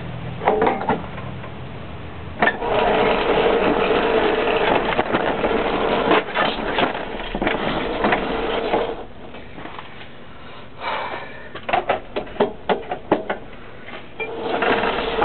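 Electric drive motors of a remote-control lawnmower whining steadily as it drives, the tone dropping out about nine seconds in. A run of sharp clicks and knocks follows, and the whine returns near the end.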